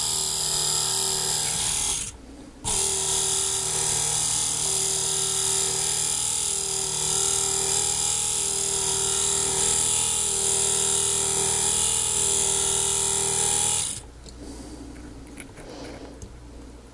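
2006 Subaru Outback rear wiper motor and gear drive running on bench power after being repaired and lubricated: a steady electric motor whir with a held tone. It cuts out briefly about two seconds in, starts again, and stops a few seconds before the end.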